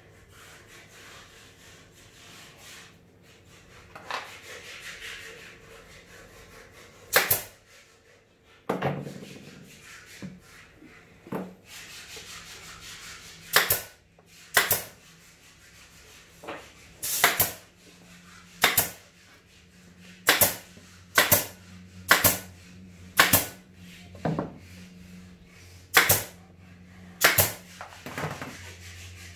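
Pneumatic nail gun driving nails into the plywood panels of a speaker box: about fifteen sharp shots at irregular intervals roughly a second apart, after some rubbing and scraping as the panels are handled. A low steady hum starts about two-thirds of the way through.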